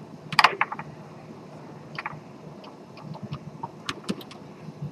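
Foosball play on a Tornado table: sharp clicks and clacks of the ball and rods, with a loud quick cluster about half a second in, a single click around two seconds, and a few more scattered clicks toward the end.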